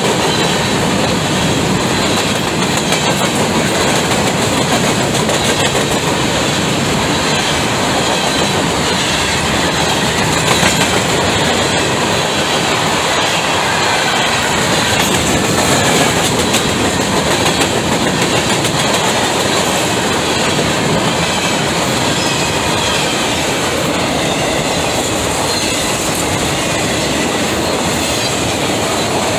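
Freight cars of a passing CSX train rolling by at track level: steel wheels running on the rails in a loud, steady rumble and clatter. Open-top hopper cars pass first and tall autorack cars near the end.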